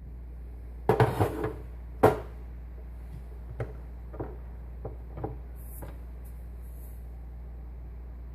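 Kitchen items being handled, such as coffee maker parts: a loud clatter about a second in, a sharp knock just after two seconds, then several lighter knocks, over a steady low hum.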